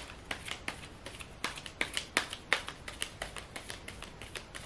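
A deck of tarot cards being shuffled by hand: a quick, even run of crisp card clicks, about three or four a second.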